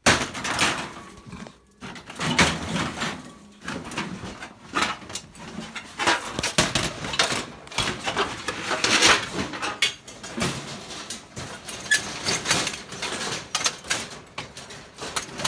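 Junk in a dumpster being shifted around by hand: irregular clattering, knocks, scrapes and rustling of debris.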